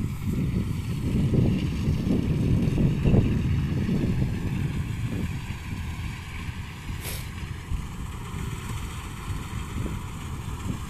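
Kubota DC-105X combine harvester running while it cuts rice, heard under an uneven wind rumble on the microphone.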